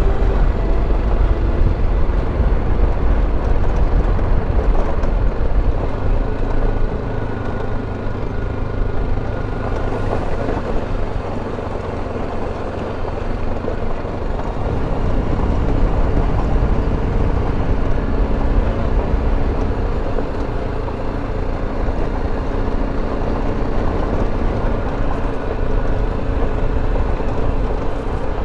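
BMW G310GS's single-cylinder engine running steadily as the motorcycle rides a rough gravel track, with a heavy rushing noise underneath.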